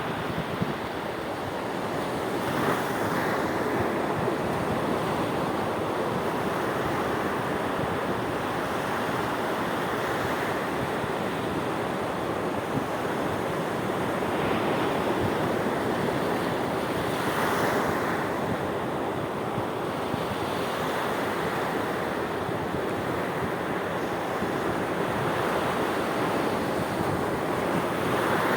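Sea waves breaking and washing ashore: a continuous rush of surf, with a louder break now and then.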